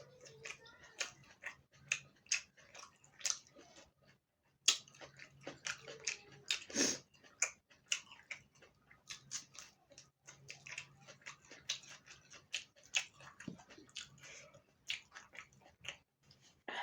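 Close-up eating sounds: a person chewing and biting food, with many short, irregular mouth clicks.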